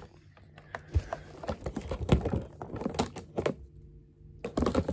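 Irregular clicks and knocks of clear plastic storage boxes and their lids being handled and packed.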